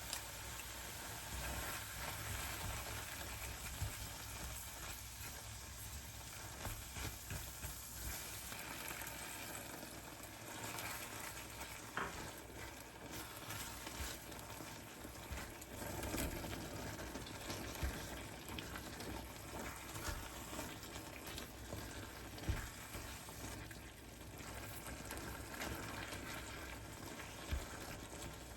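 Food frying and sizzling in a pan while it is stirred, with scattered knocks of the utensil against the pan.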